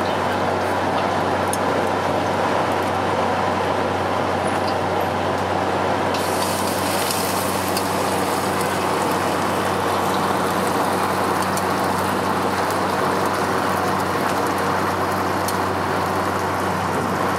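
Gas wok burner running loudly, with a steady hum underneath. About six seconds in, a hissing sizzle joins as the noodles fry in the hot wok, with scattered light clinks of the ladle against the wok.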